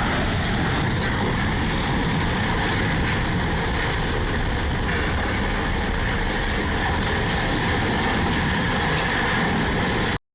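Steady, loud noise of a heavy vehicle running, cutting off suddenly near the end.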